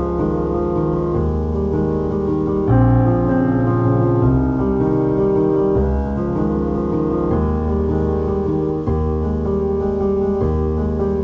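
Background music: slow piano or keyboard chords with sustained notes and a low bass, changing every second or two.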